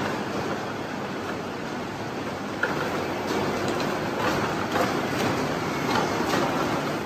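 Pepper robot's omniwheeled base rolling across the floor: a steady rattling noise with scattered light clicks, more of them in the second half.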